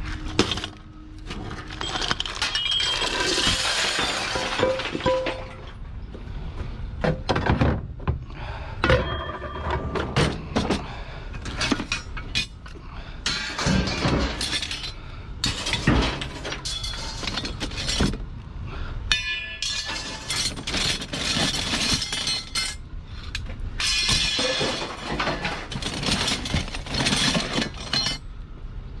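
Loose scrap pieces clinking and clattering as they are handled and tossed while being sorted, a steady run of sharp irregular knocks with a brief rattle about two-thirds of the way through.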